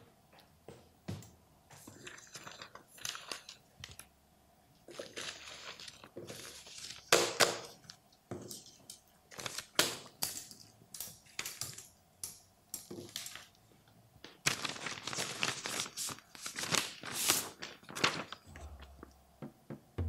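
Sheets of paper rustling and shuffling in irregular bursts as documents are leafed through and moved about on a desk, with a few light knocks.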